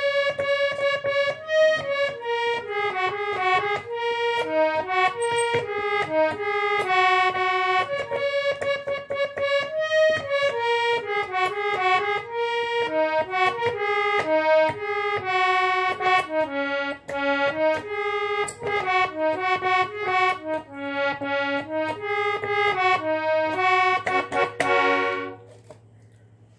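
Harmonium playing a single-line melody, its reedy notes stepping up and down; the playing stops shortly before the end.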